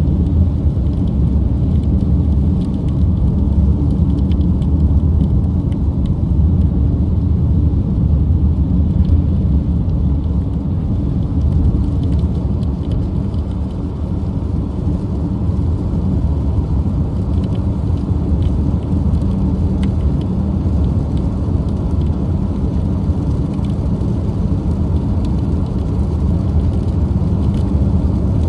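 Steady low drone of a car travelling at highway speed in heavy rain, heard from inside the cabin: tyre and road noise with engine hum, and faint scattered ticks of rain against the window.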